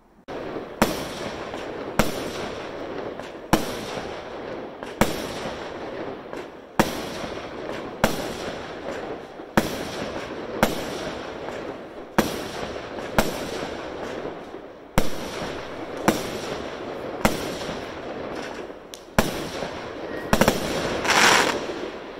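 Aerial fireworks going off shot after shot: a sharp bang about every second or so, with a hissing crackle filling the gaps, and a denser burst of crackling near the end.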